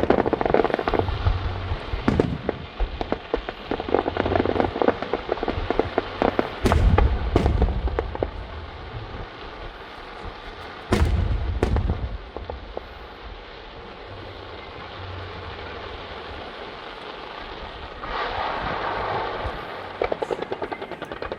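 Aerial fireworks going off: deep booms of bursting shells, the loudest about seven and eleven seconds in, with crackling in between. Near the end a hissing crackle gives way to a rapid string of pops.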